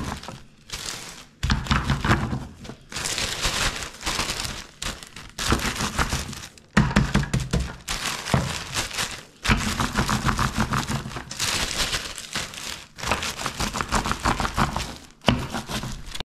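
Baked Napoleon-cake pastry being crushed into crumble inside a plastic bag with a rolling pin and hands: the bag crinkles and the pastry crunches in repeated strokes a second or two long, with short breaks between.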